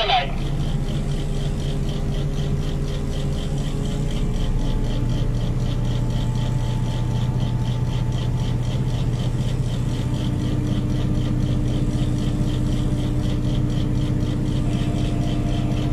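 Large mobile crane's diesel engine running steadily under a lift, with a fast even rattle over its hum; the engine note shifts and strengthens about four seconds in and again about ten seconds in.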